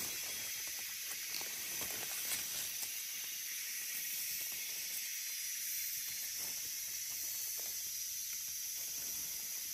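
Steady high-pitched drone of insects in the forest. Under it come a few faint scrapes and rustles as hands and a knife dig and trim mushrooms in dry leaf litter.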